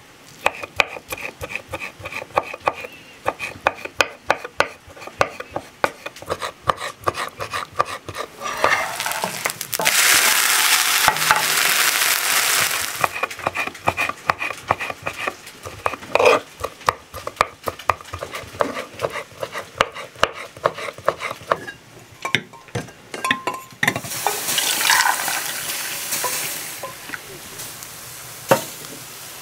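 A kitchen knife chopping cooked pork liver on a wooden cutting board in quick, uneven strikes. Twice, at about ten seconds in and again near the end, a few seconds of frying sizzle from a hot pan come in.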